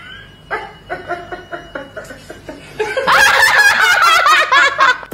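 A woman laughing, first in short rhythmic chuckles, then breaking into loud, high-pitched cackling laughter about three seconds in.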